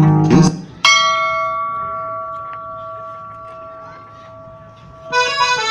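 A single bell-like chime, struck once just under a second in and ringing out, fading slowly over about four seconds after the song with guitar stops. Near the end music starts again with a sustained chord.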